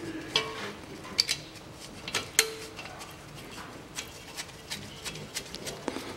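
Metal tools and parts clinking and ticking against the front suspension, a few sharp clinks with a brief ring in the first two and a half seconds, the loudest at about two and a half seconds in, then lighter irregular ticks.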